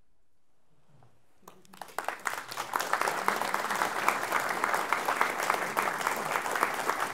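Audience applauding: near silence at first, then clapping starts about a second and a half in and quickly swells into steady applause.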